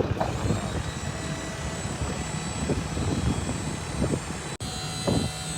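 Dump trailer's hydraulic pump running with a steady drone and thin whine, with a few soft knocks over it.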